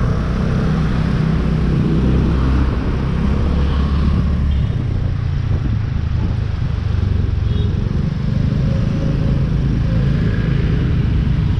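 Ride noise from a motorbike moving at about 28 km/h through city traffic: a steady low rumble of wind and road on the microphone over the bike's engine and the surrounding traffic. A couple of faint short high beeps sound about four and seven and a half seconds in.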